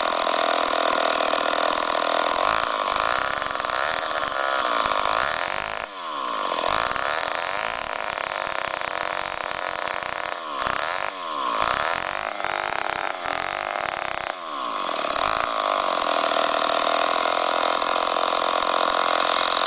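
A restored Mono 48 chainsaw's two-stroke engine running. Its pitch rises and falls several times through the middle as the throttle is worked, and it holds a steady speed at the start and end.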